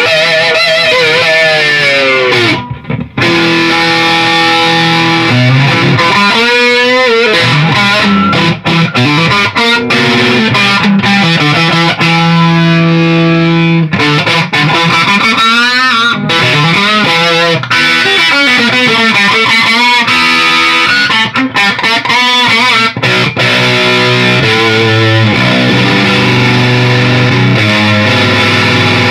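Electric guitar played through a Beetronics Tuna Fuzz pedal into a Marshall Plexi amp and Marshall cabinet, with a fuzzy, distorted tone. It plays a lead line of held, bent and wavering notes that breaks off briefly about three seconds in.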